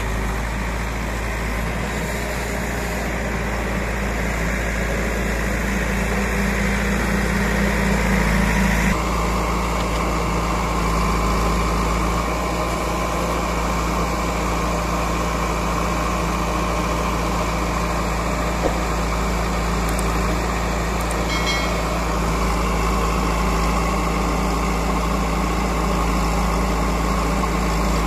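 Tractor diesel engine running steadily, its sound changing abruptly about nine seconds in.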